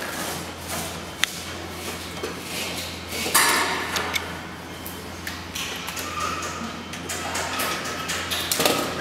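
Workshop room sound: a steady low hum under small clicks and rustles of wires and parts being handled on a circuit-module frame, with two brief rustling bursts, about three and a half seconds in and near the end.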